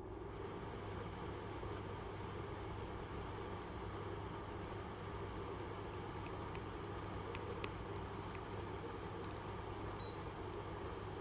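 Koizumi KAW-1682 window air conditioner running: a steady fan rush over a low hum.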